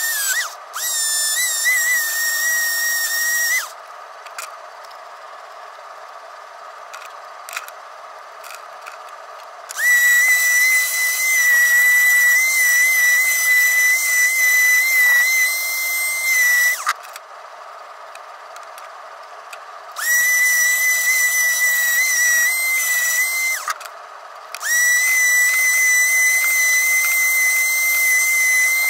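Electric detail sander running with a high, steady whine, sanding rust off a ball peen hammer head. The whine drops away about four seconds in, again about seventeen seconds in and briefly near the end, each time coming back a few seconds later.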